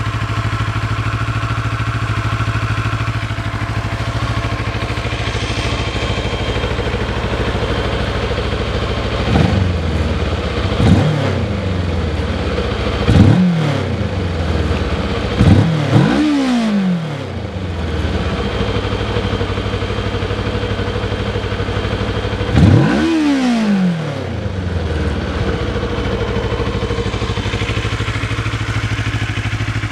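Kawasaki ER-6 (2007) parallel-twin engine on its stock exhaust, idling steadily. Midway it is given five quick throttle blips, and a sixth later on; each one rises sharply in pitch and falls back to idle.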